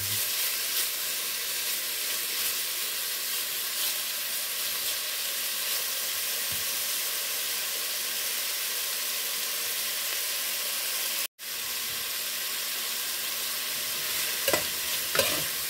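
Cubes of pork sizzling steadily as they fry in hot oil in a stainless steel pot, rendering out their fat. A spatula stirs and scrapes the pot near the end, and the sound drops out for an instant about eleven seconds in.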